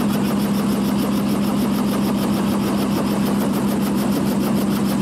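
Light helicopter running on the ground with its main rotor turning: a steady engine hum under the rapid, even beat of the blades.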